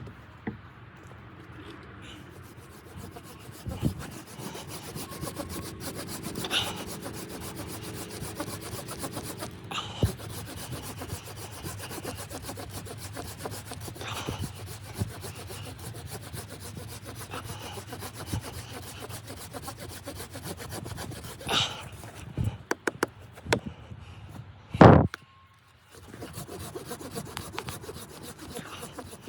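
Continuous rasping and rubbing on wood, with scattered knocks and one loud knock near the end.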